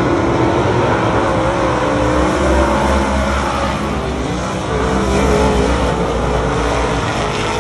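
A pack of winged race cars running hard on a dirt oval, several engines at once, their pitch rising and falling as they go round the track.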